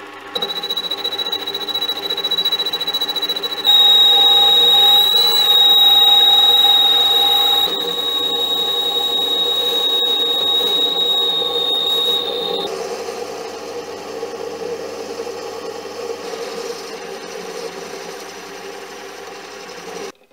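Mini lathe running while a boring bar cuts inside a 42CrMo4 steel workpiece, with a steady high-pitched squeal over the motor and cutting noise. The squeal stops about two-thirds of the way through, the cutting goes on, and everything stops suddenly at the very end.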